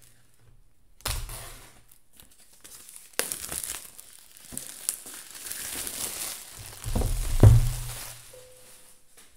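Packaging on an iPad Pro box being torn and crinkled open by hand, in a short burst about a second in and a longer stretch from about three seconds, with dull knocks of the box being handled about seven seconds in.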